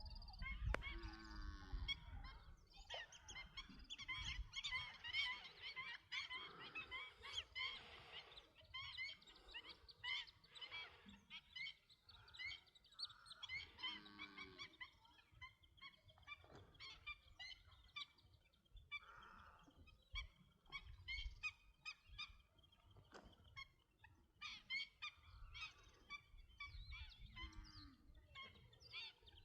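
Birds calling and singing: many overlapping short chirps and whistles, with a lower, drawn-out call three times.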